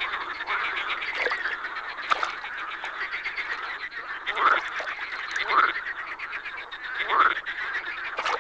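Chorus of many male marsh frogs croaking at once in a dense, rattling din, the males calling to attract mates in the spring breeding chorus. Louder single calls that rise in pitch stand out above the chorus about once a second, most clearly in the second half.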